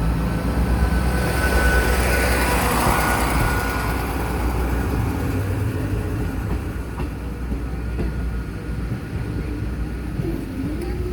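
A train passing over the level crossing, its low rumble slowly fading away.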